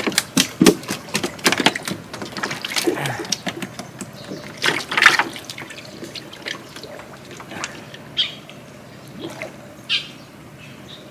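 Shallow water splashing and sloshing in irregular bursts as hands grope through it for fish. The splashes come thick in the first few seconds and thin out after about the middle.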